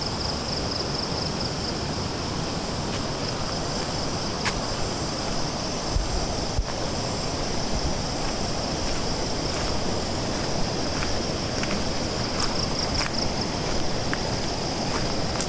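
Steady rushing of a fast-flowing river running high after a night of heavy rain, with insects calling in a steady high-pitched drone over it.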